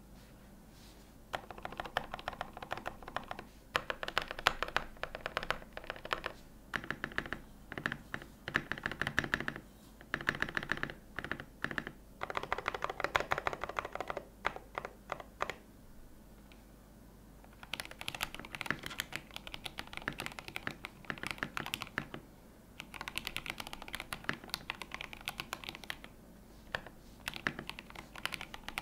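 Typing on a Tofu65 custom mechanical keyboard with lubed Yellow Milky switches, an aluminium plate and Seasalt keycaps: runs of quick keystroke clacks broken by short pauses, the longest about two seconds a little after the middle.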